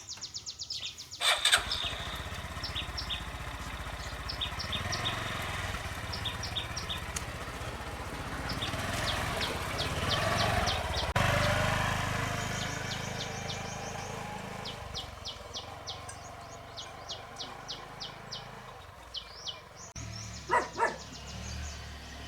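Honda RSX 150 motorbike engine running, swelling in the middle and then easing off, with repeated short high chirps over it.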